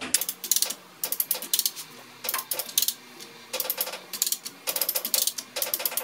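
A 1,500 lb Coffing lever chain hoist being ratcheted: each stroke of the handle gives a quick run of pawl clicks, about six runs roughly a second apart. The hoist is taking up tension against a hydraulic cylinder ram that has not yet budged from its tube.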